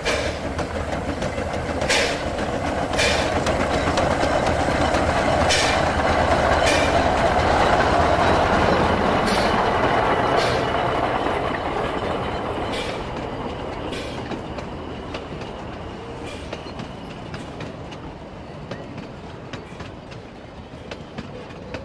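S-scale narrow-gauge model Shay locomotive running past with a train of log cars: a steady rolling and running sound that grows louder, peaks, then slowly fades as it moves away. Sharp wheel clicks come in pairs every few seconds.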